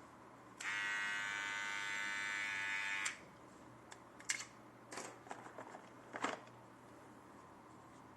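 GM 6108 T-blade hair and beard trimmer running, its motor giving a steady high buzz for about two and a half seconds before it cuts off. A few short clicks and knocks follow.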